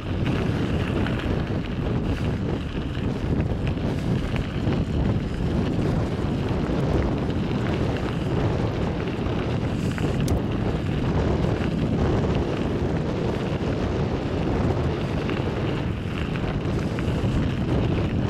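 Steady wind noise buffeting the microphone over the low rumble of a moving vehicle.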